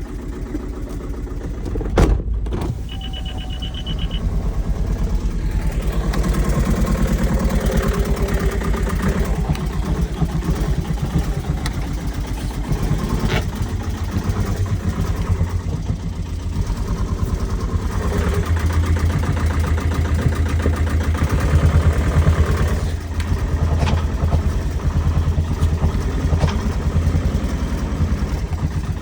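Vehicle engine running with a knock, revved up twice, which the owner puts down to a damaged piston. A sharp click about two seconds in and a short high beep just after.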